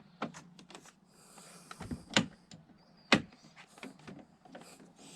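Interior door handle being pulled and released to test the reattached handle cable: light clicks and rattles, with two sharper clicks about two and three seconds in.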